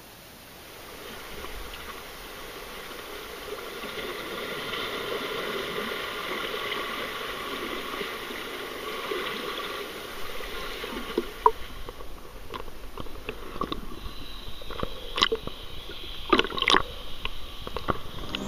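Sea water sloshing and splashing around a camera held at the surface, with several sharp splashes in the second half.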